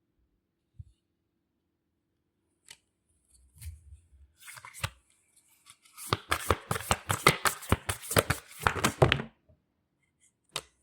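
A deck of oracle cards being handled and then shuffled by hand: a few single clicks and soft thumps, then about three seconds of rapid papery flicking.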